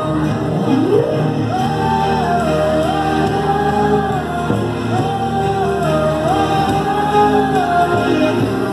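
A song playing, a sung melody with held, wavering notes over steady instrumental backing.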